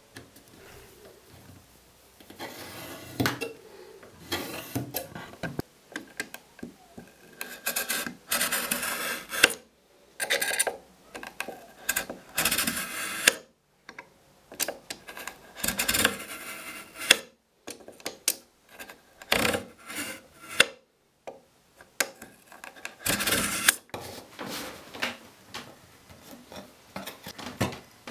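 Knife blade scoring lines across a softwood 2x4 against a steel square: a run of separate scraping strokes with short pauses between them.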